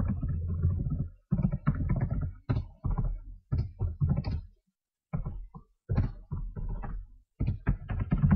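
Typing on a computer keyboard: quick runs of key strikes with short pauses between them.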